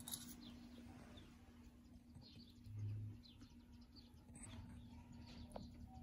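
Near silence: faint room tone with a steady low hum, a few faint high chirps, and a brief low hum about three seconds in.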